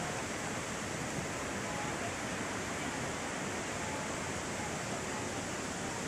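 Steady rush of a mountain stream running over rocks in a gorge, its flow low.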